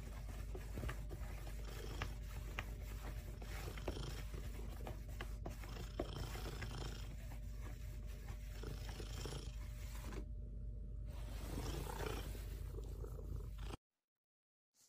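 Cat purring steadily, a low continuous rumble that cuts off suddenly near the end.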